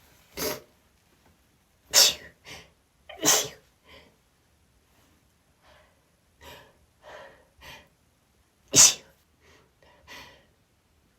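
A woman sneezing again and again, set off by sniffing chhinkni sneezing powder. There are four loud sneezes: three within the first three and a half seconds and one near the end. Softer gasps and half-sneezes come between them.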